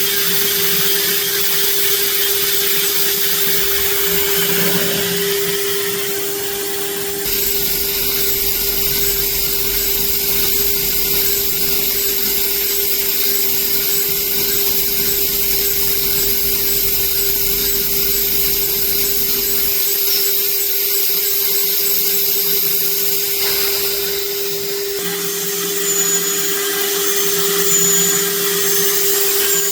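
PrintNC Pro CNC router's spindle milling a 6061 aluminium hex nut: a steady high whine with the hiss of cutting, changing character a few times as the toolpath moves on.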